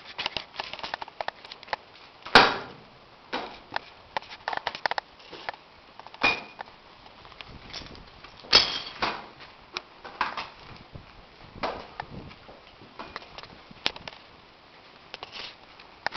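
Irregular clicks, clinks and knocks of a horse's bridle and tack being handled, with two louder knocks about two and a half and eight and a half seconds in, and a brief metallic ring near the middle.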